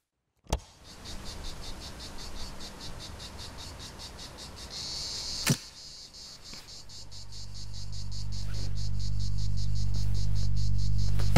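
Crickets chirping in a rapid, steady pulse, with a sharp click near the start and another about halfway. From a little past halfway a low electrical hum swells steadily louder underneath.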